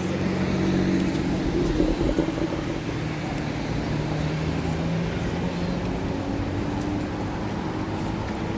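Road traffic on a city street: vehicles passing with a low engine hum, loudest about two seconds in.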